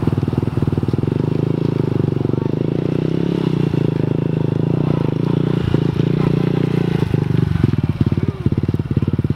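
Mini dirt bike's small single-cylinder engine running at a steady low throttle, with a few brief dips in level near the end.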